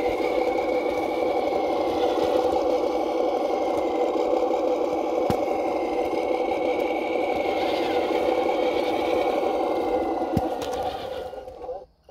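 Electric motor and gearbox of a scale RC truck running steadily at crawling speed, with a thin whine that rises and falls a little as the throttle changes. The sound fades out near the end.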